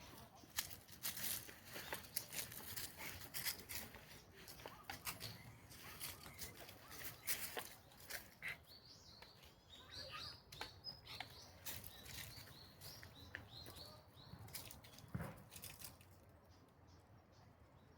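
Footsteps crunching through dry fallen leaves in an uneven run of crisp rustles, stopping about sixteen seconds in. Small birds twitter in a quick series of high chirps in the middle.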